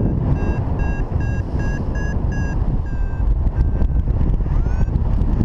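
Wind rushing over the microphone in flight, with a paragliding variometer beeping about three times a second and then slowing, ending with a rising chirp; the vario's beeps signal that the glider is climbing in lift.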